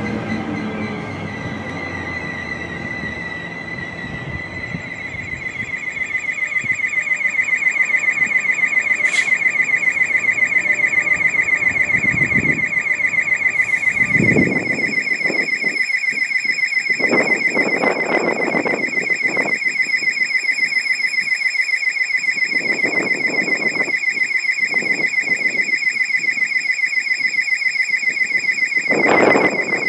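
A steady high-pitched tone pulsing rapidly, alarm-like, with occasional lower rumbles and a louder rush near the end.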